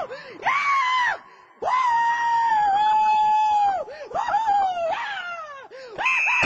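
Loud, drawn-out screaming at a high, nearly steady pitch. A short scream comes first, then a long one held for about two seconds, then a run of shorter cries that bend and break in pitch.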